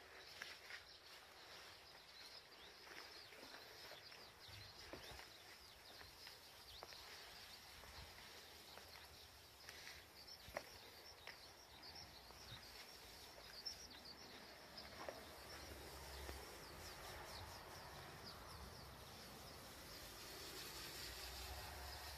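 Faint outdoor ambience with small birds chirping briefly and often, a few faint clicks, and a low rumble that grows in the second half.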